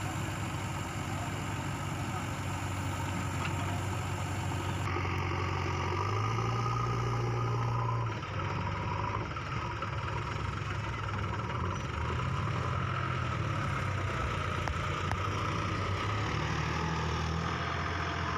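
Diesel engines of a JCB 3DX backhoe loader and a combine harvester running steadily. The engine note rises and falls a few times as the machines work the harvester out of the mud.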